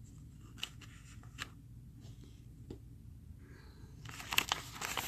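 Faint handling noise: a few separate soft clicks, then a short stretch of rustling and clicking near the end over a low steady hum.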